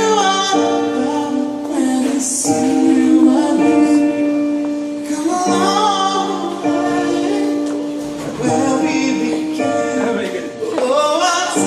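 Live music: a singer holding and gliding between long notes over sustained instrumental chords.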